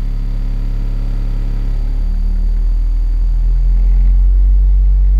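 Car audio subwoofers playing deep bass test tones from a frequency-generator app, the tone stepping to a new pitch every second or so and growing louder about four seconds in.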